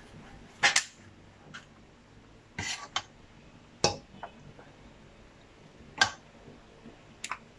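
Metal ladle knocking and scraping against a stainless steel pot while thick kishk is scooped out and poured into foil pans. The knocks are sharp and come singly or in pairs every second or two.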